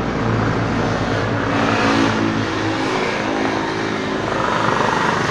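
A motor vehicle's engine running close by, loud and continuous, its pitch rising and falling.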